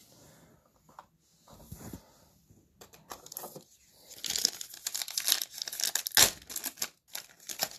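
Foil wrapper of a football trading-card pack crinkling and being torn open, starting about four seconds in, after a few faint handling taps.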